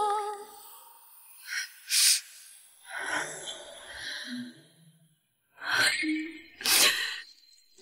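A woman's short breathy gasps and exhalations, several in a row with quiet gaps between, as in surprised recognition.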